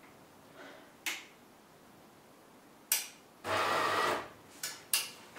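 The main switch clicking as it is flipped, then the opened-up DeLonghi Magnifica ESAM 4500 automatic coffee machine powering up: a short buzzing machine hum of under a second, followed by a couple more clicks.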